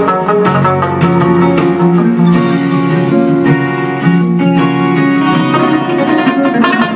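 Background music led by quickly plucked strings, with many fast notes over a steady accompaniment.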